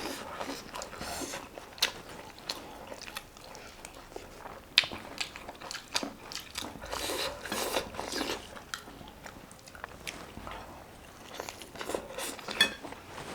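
A person eating close to the microphone: wet chewing with sharp bites and crunches at irregular intervals.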